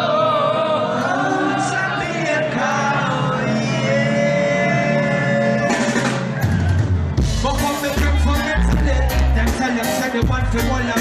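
Live reggae band with singing, played loud over a concert PA. The deep bass drops out for the first six seconds or so, leaving the voice and higher parts, then the bass and drums come back in.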